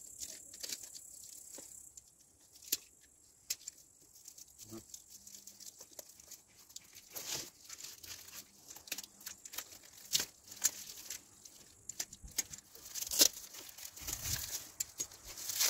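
Plastic-wrapped parcel being slit with a utility knife and pulled open by hand: irregular crinkling of plastic film, scraping, and tearing of packing tape in short scattered rustles.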